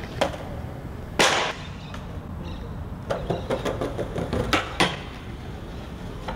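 Skateboard knocks and slaps. There is one sharp impact about a second in, then a run of lighter clicks and two more knocks a little past the middle.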